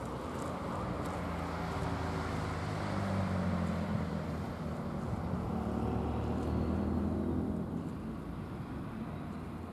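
Passenger multiple-unit train approaching along the track: a steady rumble with a low hum that grows louder over the first few seconds and eases off near the end, with a faint high whine about two-thirds of the way through.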